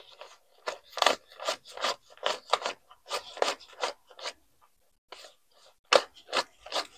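Paper one-dollar bills being counted by hand, each note flicked from one hand to the other with a crisp rustle, about two or three a second, with a short pause a little past the middle.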